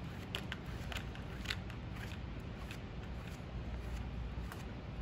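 Flexible plastic rib drawn across a soft clay slab laid on canvas, a soft steady scraping with a few light ticks in the first second and a half, as the clay is compressed to strengthen it.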